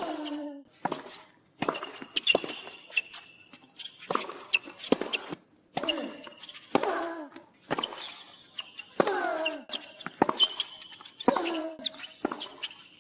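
Tennis rally: a ball struck by rackets and bouncing, a string of sharp pops at uneven intervals, several followed by a short ring. After about five of the hits comes a brief sound that falls in pitch.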